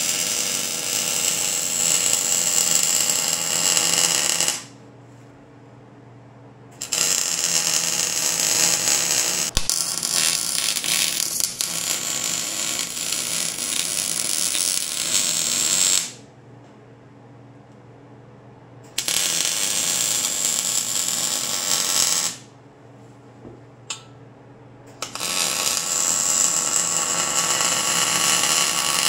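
Wire-feed (MIG) welder arc crackling as beads are laid on steel, in four runs separated by short pauses: about four seconds, then about nine, then about three, then about four cut off near the end.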